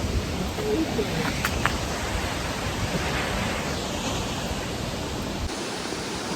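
Steady rushing noise of falling water from a waterfall, with wind gusting on the microphone; the low rumble drops away about five and a half seconds in.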